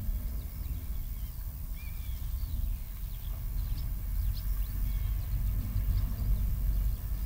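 Rural field ambience recorded with a spaced A/B pair of omnidirectional microphones about 65 cm apart: small birds chirping in short calls over a steady low rumble that grows a little louder toward the end.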